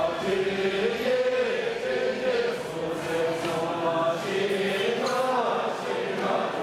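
A large group of voices singing together in unison: a slow, chant-like song of long held notes that move in steps from one pitch to the next.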